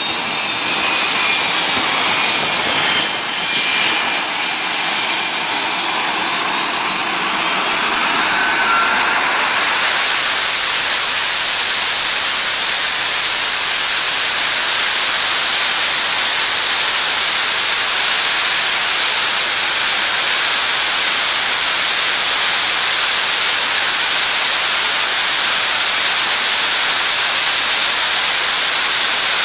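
The twin J52 turbojets of an EA-6B Prowler running at takeoff power, a loud, steady jet roar and hiss. Faint turbine whine tones show in the first several seconds, then the noise settles to a constant level about ten seconds in.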